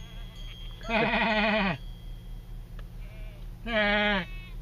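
Goats bleating: two long, quavering bleats, about a second in and again near the end, with a fainter short one between, over a steady low hum.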